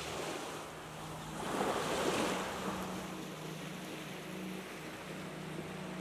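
Small waves breaking gently and washing up on a sandy beach, one wash swelling louder about a second and a half in, over a steady low hum.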